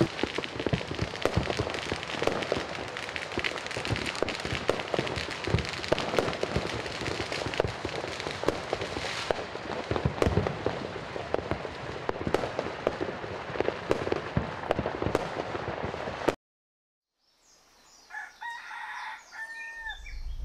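Fireworks and firecrackers going off in a dense, continuous crackle of sharp pops, which cuts off suddenly about three quarters of the way through. After a brief silence, faint short bird calls are heard near the end.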